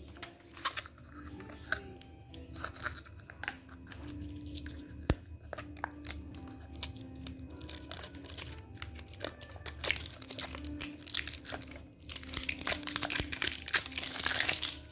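Clear plastic packaging crinkling and crackling as a roll of sticker labels is handled and unwrapped, with scattered clicks that become a dense crinkling, loudest near the end. Soft background music underneath.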